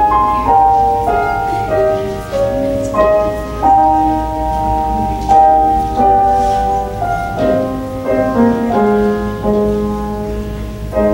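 Slow instrumental keyboard music: a melody of held notes over sustained chords, with a new note every second or so.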